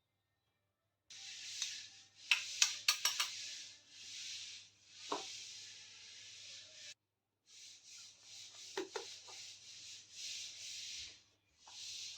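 Faint rustling and rubbing with scattered light clicks and taps, typical of unwrapping and handling small plastic miniature toy kitchen pieces. The sound drops out to dead silence at the start and again about seven seconds in.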